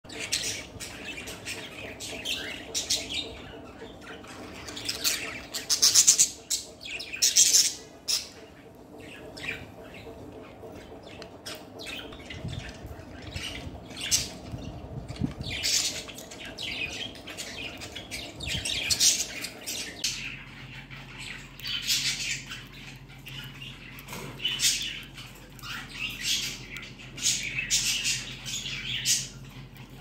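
Cockatiels chirping and squawking in short calls, mixed with the pecking and crunching of a cockatiel eating pellets from a plastic feeder.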